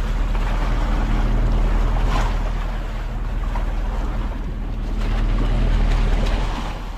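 Motorized outrigger bangka under way on choppy sea: a steady engine drone under water rushing and splashing past the hull and outriggers, with wind on the microphone.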